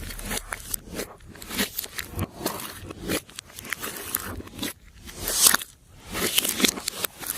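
Glossy slime being worked by hand: many small sticky clicks and crackles, with a few longer squishing swells about five and six and a half seconds in.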